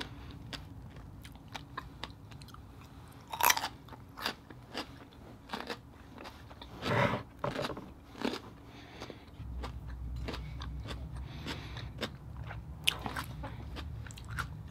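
Close-miked chewing of a mouthful of baked oyster with fish eggs: wet mouth clicks and smacks with crunchy pops, and a few louder bites or chews about three and a half and seven seconds in.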